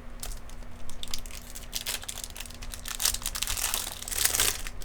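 Trading cards and pack wrappers being handled: quick crinkling and flicking, with a denser burst of crinkling about four seconds in.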